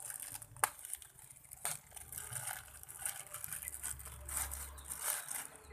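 A squishy's packaging being handled and opened by hand: rustling and scraping, with two sharp clicks about a second apart.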